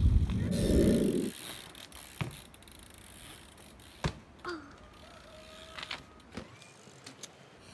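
BMX bike riding on an asphalt road: a loud rush of rolling noise in the first second as it passes close, then a few sharp knocks and clicks from the bike while the rider does tricks.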